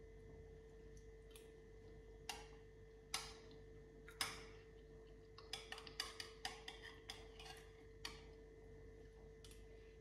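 Metal spoon clinking against a glass dessert cup, three separate clinks with a brief ring, then a quick run of small clicks and scrapes as it digs into the dessert, over a faint steady hum.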